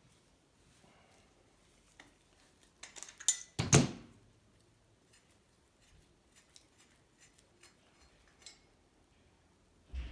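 Metal objects clinking and being set down by hand: a few light clicks, then a louder clatter of several knocks about four seconds in, scattered light ticks after it, and a thump near the end.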